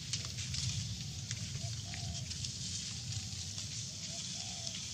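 Forest ambience: a low steady rumble with scattered faint crackles, and a few short animal calls.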